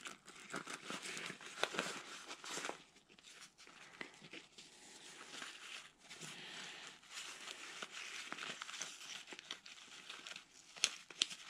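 Rustling and crinkling of a black fabric pouch as a folding pocket chainsaw blade is handled and packed into it, with scattered small clicks and two sharper clicks near the end.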